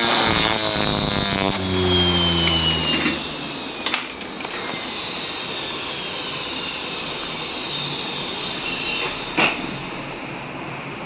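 Bosch front-load washing machine's motor and drum spinning and then winding down, its whine falling steadily in pitch, with a click about four seconds in and another near the end. The motor runs again after its control board (PCB) has been repaired.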